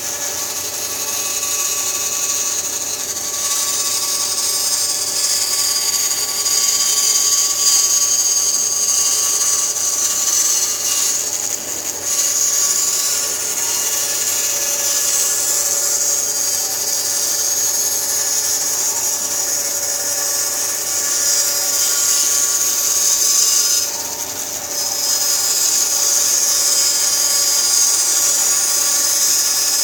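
A 14-inch Jet bandsaw with a 3/4-inch blade resawing a board of oak lengthwise: a steady, high-pitched machine sound of the blade cutting, dipping briefly in level about twelve and twenty-four seconds in.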